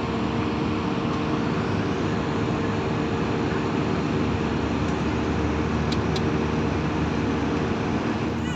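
Steady cabin noise of an Airbus A320-family jet airliner in cruise: an even airflow hiss with a constant engine hum underneath, plus a couple of faint clicks about six seconds in.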